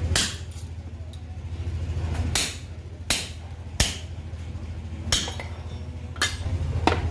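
Hand hammer striking a steel punch held against sheet metal on a steel block: about seven sharp, ringing metallic blows at uneven intervals.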